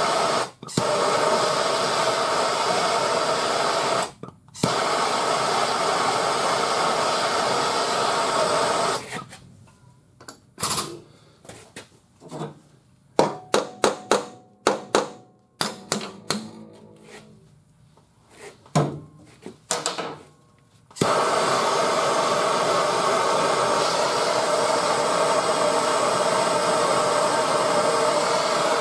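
Bernzomatic TS4000 hand torch burning with a steady hiss as it heats work-hardened body steel that is under pull. The flame stops briefly just after the start. In the middle there is a run of sharp taps with short ringing, like a body hammer on the sheet metal, before the torch hisses steadily again.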